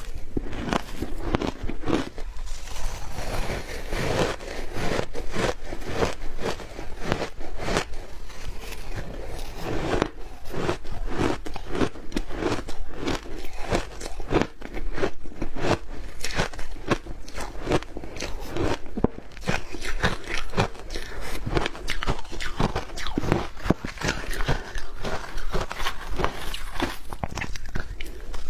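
Shaved ice being bitten and chewed in the mouth: a continuous run of crisp crunches, several a second.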